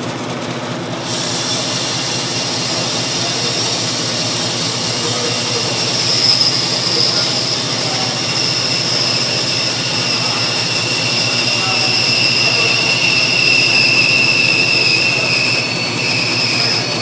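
Bandsaw running and resawing a hardwood block, its blade ripping a 5/8-inch strip off the side: a steady machine hum, with a hiss of cutting that comes in about a second in and a high whine over it.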